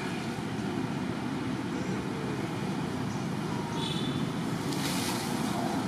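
Steady low background rumble, with a brief faint high chirp about four seconds in.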